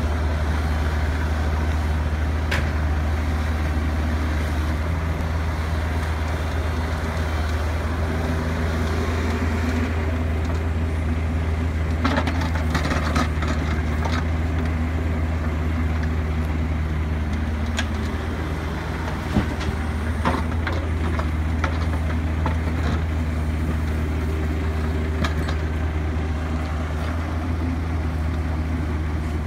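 Diesel engine of a Kubota mini excavator running steadily under load as it digs dirt, a low drone throughout. Short knocks and clatters of the bucket striking and scraping dirt and rock come a few times, most around the middle.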